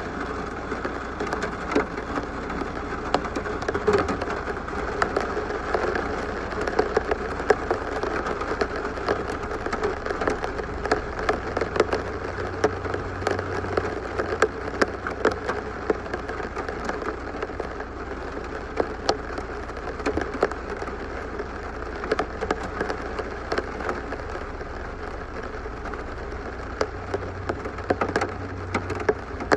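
Steady rain falling, with many individual drops ticking sharply on a hard surface.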